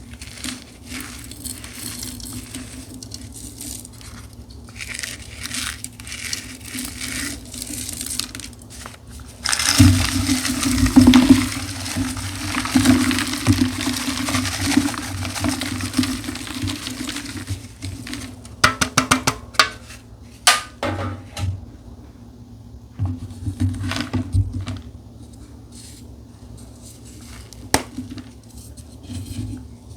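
Dyed gym chalk topped with crunchy charcoal pieces being crushed: scattered crumbling at first, a long dense crunching stretch in the middle, then a run of sharp separate snaps and crackles.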